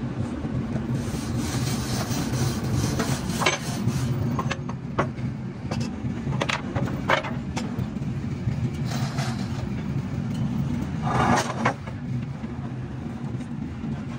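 A motor running steadily with a low hum, with scattered short knocks about a dozen times, the loudest about 11 seconds in.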